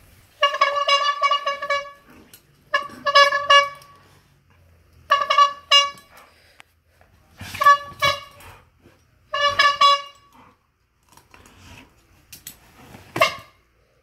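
Old-fashioned rubber-bulb bicycle horn honking as a dog bites and squeezes the bulb. It sounds in five bursts of two or three quick honks over about ten seconds. Then come some rustling and a sharp knock near the end.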